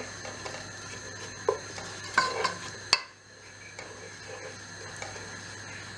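A spatula stirring diced onions frying in oil in a pan, scraping over a steady faint sizzle, with a few sharp knocks against the pan, the sharpest about three seconds in. The onions are being fried until brown.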